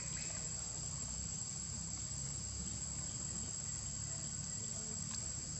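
A steady, high-pitched drone from a chorus of insects, running without a break.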